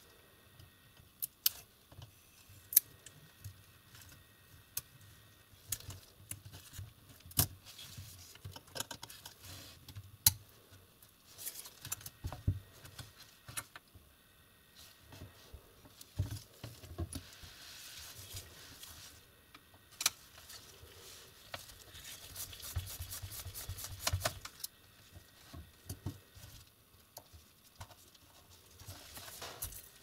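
Laptop disassembly handling sounds: scattered sharp clicks and taps of a thin pry tool against the plastic case and motherboard, with rustling of gloved hands, loudest in a few single clicks and a longer rustle past the middle.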